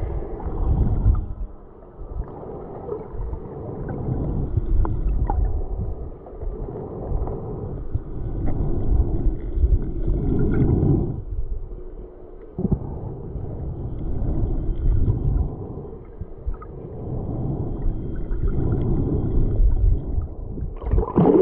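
Muffled underwater sound heard through a submerged action camera: low rushing, gurgling water noise that swells and fades every few seconds, with a brighter, splashier burst near the end.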